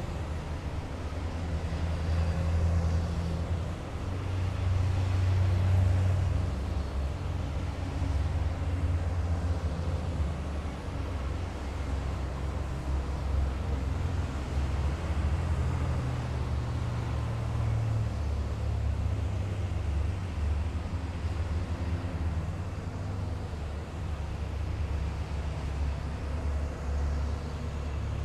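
Column of heavy military vehicles driving past on a city road: a continuous low engine rumble that swells and eases as vehicles pass, loudest about five seconds in.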